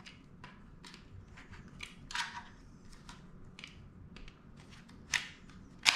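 Light plastic clicks and handling noise as the battery cover is fitted back onto the plastic RC transmitter, with a short scrape about two seconds in and two sharp snaps near the end as the cover clicks into place.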